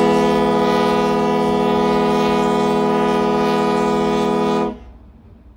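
The Queen of New Westminster's ship's whistle (horn) on the funnel, sounding one long held blast as a chord of several steady tones. It cuts off near the end, leaving a brief fading echo.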